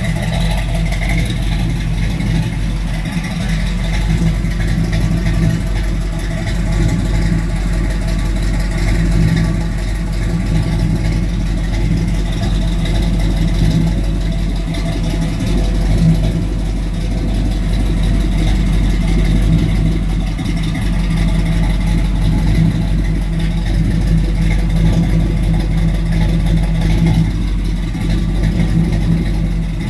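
Chevrolet Nova Yenko tribute's V8 engine idling steadily through its exhaust, heard close up from beneath the car.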